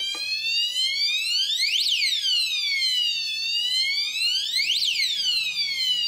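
Plug-in 220 V power-failure alarm sounding its electronic siren, which starts abruptly and wails up and down in pitch about once every three seconds. This is the device's alert that mains power has come back on.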